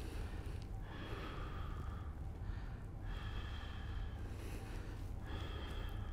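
A person taking several deep breaths in and out through the nose, about four in all, over a steady low room hum; no joint crack is heard.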